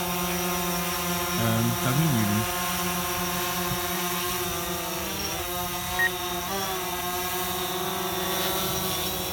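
DJI Phantom quadcopter's propellers and motors giving a steady multi-tone whine as it hovers low, the pitch dipping and rising briefly about five and six and a half seconds in as the motors change speed. A short low sound comes about two seconds in, and a small click about six seconds in.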